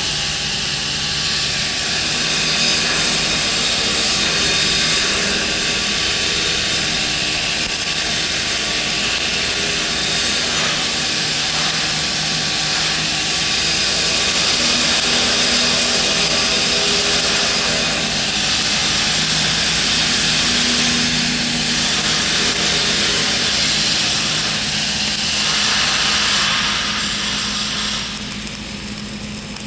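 Gas-shielded flux-cored arc welding with .045 wire, running a vertical-up (3G) bead at about 25 volts and 317 inches per minute wire feed: a steady arc hiss that stops near the end as the arc is broken.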